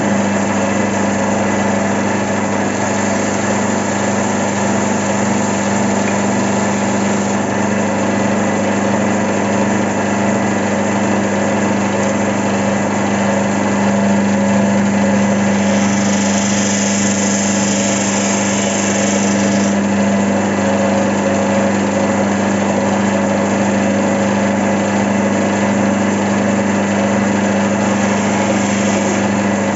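Electric belt sander switched on and running steadily with a strong even hum. For a few seconds past the middle a brighter, higher hiss joins in as a piece of acrylic is sanded against the abrasive.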